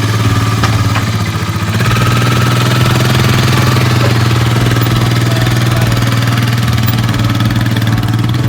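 Engine of a small farm vehicle running steadily while it is driven along.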